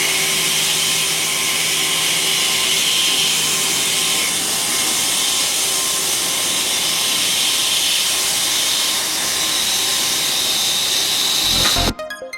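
Mazak Multiplex W-200Y twin-spindle CNC lathe machining, a steady hissing noise with faint steady tones. It stops suddenly near the end, where electronic music with a beat begins.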